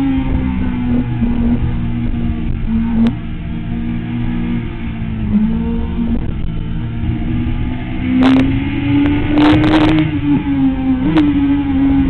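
Sport motorcycle engine running hard at high revs on track, heard from a camera mounted on the bike. The engine note holds high and steady, swells about two-thirds of the way through, then drops with a quick blip near the end, with a few brief crackles over it.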